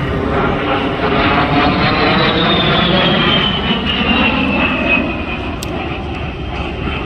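A jet aircraft flies past with a loud, rushing engine noise. Through the middle of the pass a high whine slides down in pitch as the plane goes by.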